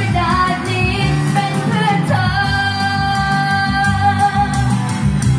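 A woman singing a pop ballad live into a microphone, accompanied by a strummed acoustic guitar; about two seconds in she holds one long note.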